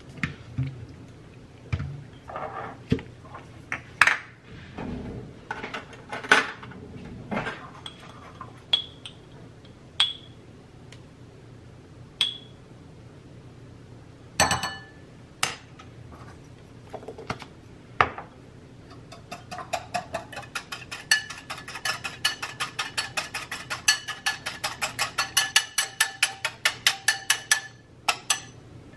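Metal spoon and jars clinking against a glass bowl, then from about 19 s a wire whisk beating cream in the glass bowl: fast, even, ringing clinks of metal on glass, about four or five a second, as the cream is whipped.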